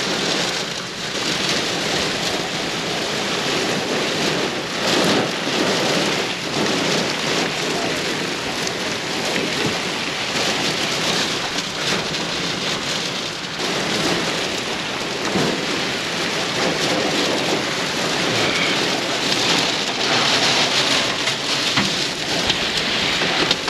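Heavy thunderstorm rain pouring down, a dense steady hiss that surges louder every few seconds.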